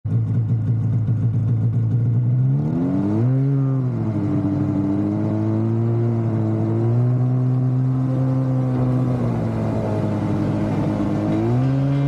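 Snowmobile engine running under way, its revs rising quickly about three seconds in, then holding fairly steady with small swells, and picking up again near the end.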